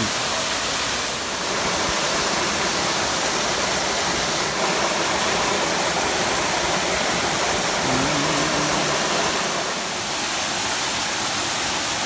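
Small waterfall pouring into a rock pool: a steady, even rush of falling water.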